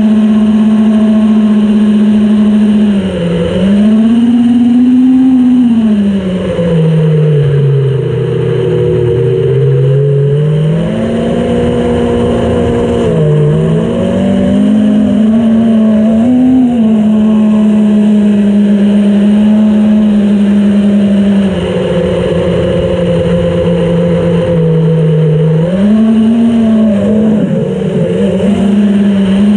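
FPV quadcopter's brushless motors and propellers whining loudly, close to the onboard camera's microphone. The pitch drops and climbs again several times as the throttle is eased off and pushed back, with the longest low stretch about a third of the way in.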